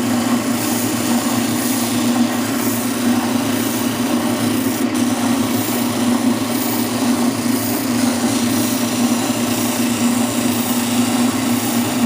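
Oscillating spindle sander running steadily, its motor hum under the hiss of the sanding drum working the edge of a wood panel.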